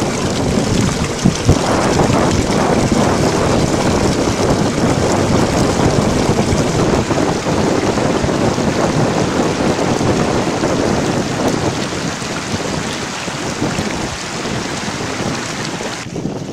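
Steady rush of a fast-flowing mountain river, water tumbling in a dense, even hiss. Near the end the higher part of the hiss drops away.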